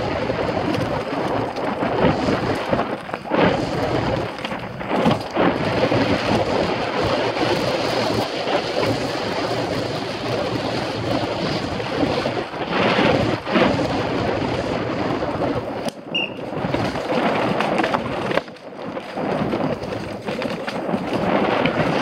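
Wind rushing over a helmet camera's microphone at racing speed, with a downhill mountain bike's tyres rumbling over dirt and rock and frequent knocks and rattles as the bike hits bumps.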